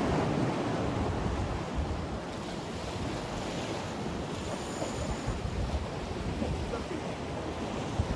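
Sea waves washing against the concrete blocks of a breakwater, with wind buffeting the microphone; a steady, even rush of surf and wind.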